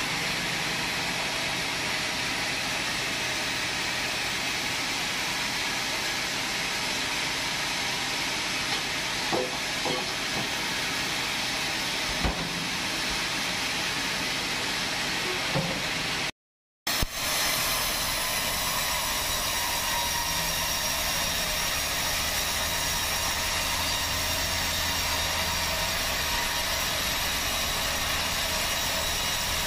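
Sawmill band saw running steadily with a hiss and a faint whine, with a few short knocks partway through. The sound cuts out for a moment just past halfway, then the running carries on.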